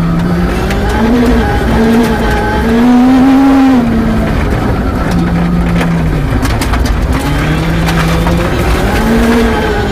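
A Peugeot 306 rear-wheel-drive rally car's engine, heard from inside the cabin, revving hard and easing off between corners. It is loudest and highest-pitched about three seconds in, then drops away and builds again near the end. Gravel clatters against the underside at times in the second half.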